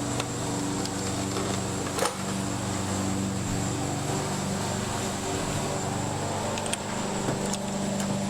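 A steady mechanical hum with a high steady whine above it, and a few light clicks, one about two seconds in and two more near the end.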